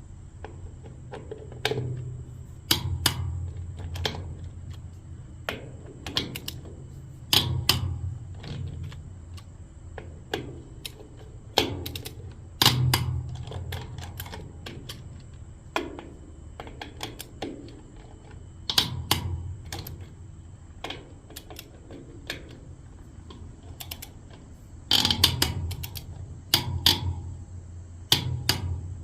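Click-type torque wrench set to 50 foot-pounds, ratcheting and clicking off as it torques wheel fasteners on a Dayton spider hub. Sharp, irregular clicks come in clusters, many with a dull knock.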